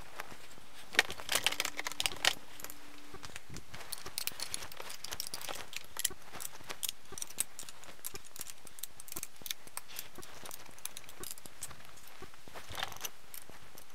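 Rapid metallic clicks and taps of a combination wrench and steel bolts being fitted and tightened on a transmission side cover, played back sped up. A short steady tone sounds about a second in.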